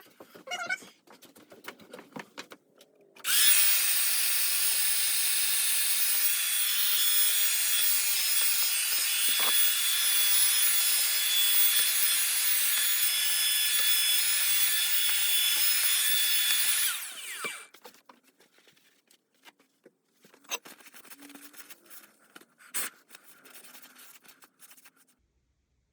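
Power drill running and boring a half-inch hole into a solid aluminium hand wheel: a loud, steady whine with a grinding cut that starts about 3 seconds in and stops about 14 seconds later. Light knocks and handling clicks follow.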